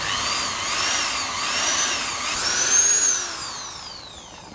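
Electric hand drill with a 6 mm bit drilling holes in the thin metal of a scrap filter canister. The motor's whine rises and dips several times as the trigger is worked, then the trigger is released and the motor winds down with a long falling whine.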